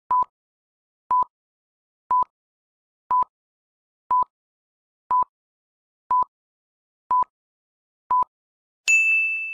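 Film-leader countdown sound effect: nine short identical beeps, one a second. Near the end a loud bell-like ding strikes and rings on, fading.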